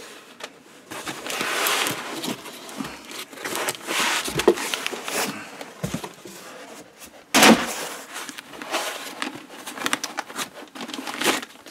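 Foam packing blocks rubbing and scraping against a cardboard box as a boxed bench multimeter is lifted out, with irregular rustling throughout. A loud thump comes about seven seconds in.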